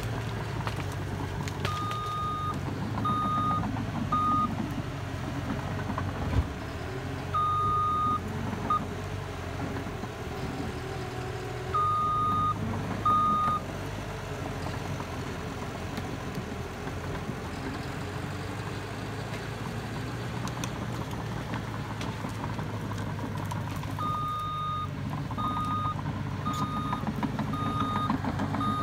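Caterpillar crawler dozer's diesel engine running steadily while it works, with its reversing alarm beeping in several short runs as it backs up, and beeping continuously over the last few seconds.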